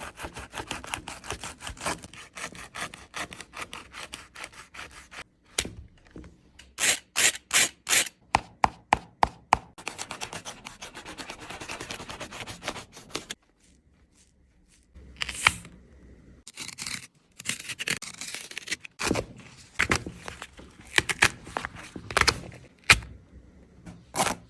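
A Nike Kyrie 8 basketball shoe being cut apart by hand: runs of rasping, scraping cutting strokes, broken by short pauses.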